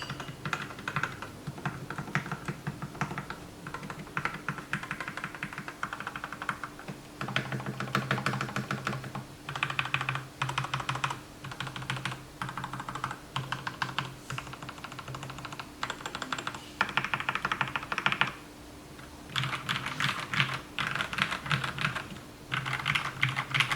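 Typing on a JKLP87 mechanical keyboard with lubed and filmed Gateron Milky Yellow linear switches in black bottom housings. The keystrokes come in fast bursts of a second or two, with short pauses between them and a longer break about three quarters of the way through.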